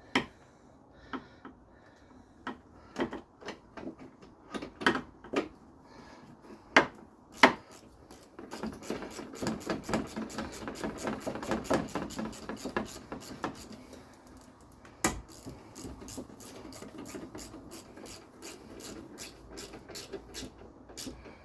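Hand ratchet clicking as the bolt holding the coolant reservoir is run back in, with scattered knocks of tools and plastic. A long fast run of ratchet clicks comes about halfway through, then a sharp knock and more, fainter clicking.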